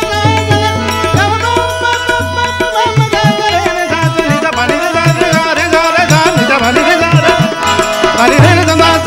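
Live Sufi ghazal: a male voice sings a flowing melodic line over tabla. Deep ringing bass-drum strokes of the tabla sound in the first few seconds and again near the end.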